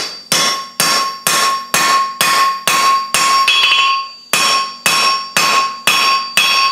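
Hand hammer striking a red-hot steel bar on a JHM anvil, about two blows a second with a short pause around the middle, each blow followed by the anvil's clear ringing tone. The blows are hammering the bar's bent-over end down flat in the first fold.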